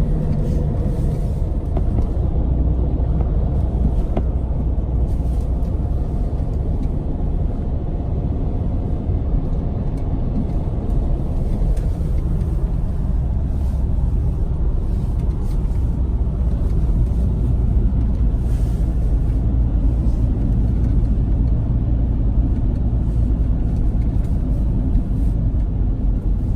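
Steady low rumble of a motor vehicle driving, even and unbroken.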